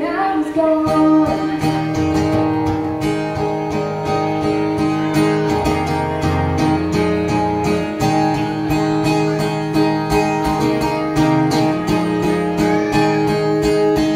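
Acoustic guitar strummed in a steady rhythm, played live.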